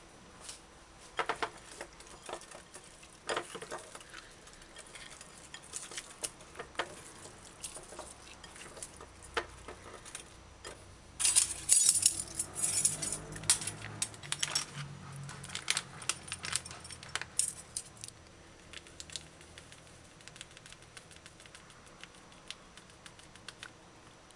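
Metal measuring spoons clinking and tapping against a ceramic plate and against each other, in scattered light clicks with a busier, louder patch about halfway through.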